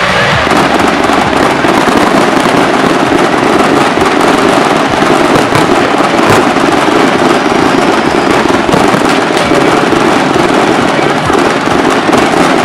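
Firecrackers going off in a dense, unbroken crackling barrage, with one sharper bang about six seconds in.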